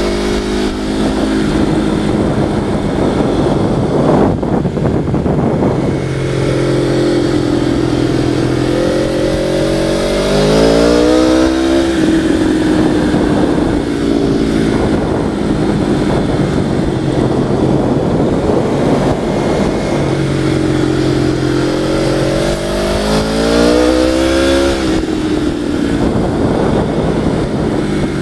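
Vehicle engine running under way, heard through a helmet camera: its note holds steady, then climbs in pitch twice, around ten seconds in and again near the end, dropping back after each climb.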